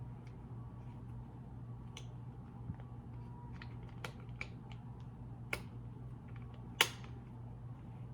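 Scattered light clicks and taps of an oscillating-multitool blade and its mounting hardware being handled and fitted onto the tool, with the sharpest click nearly seven seconds in. A faint steady low hum runs underneath.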